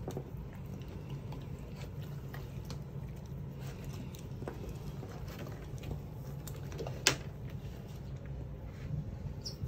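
Steady low room hum with faint rustling and scattered small clicks as a puppy is handled on a stone exam table, one sharper click about seven seconds in.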